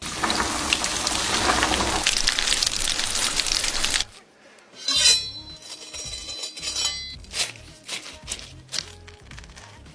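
Kitchen cooking sounds: a loud crackling hiss for about four seconds stops abruptly, followed by scattered clinks and knocks of kitchenware.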